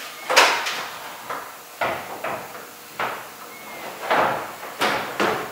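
Irregular hollow knocks and clatters of molded plastic portable-restroom panels, as the roof is set and shifted onto the wall panels of a Maxim 3000 unit.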